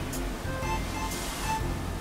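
Background music: a light melody of short, bright notes over a soft beat, with a faint hit about once a second.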